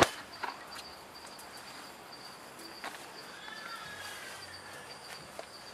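Crickets chirping steadily in a high, even trill. A sharp click or knock comes right at the start, with a few fainter ticks later.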